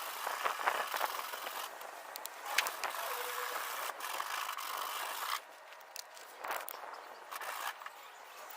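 80-grit sandpaper rasping over hardened Bondo body filler by hand, a dry hiss in strokes with brief gaps. It goes quieter about five seconds in.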